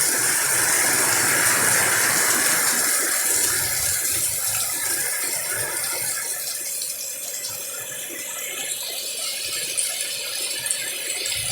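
Heavy rain pouring down in a strong windstorm, a dense steady hiss that eases a little partway through and builds again toward the end, with a couple of sharp clicks near the end.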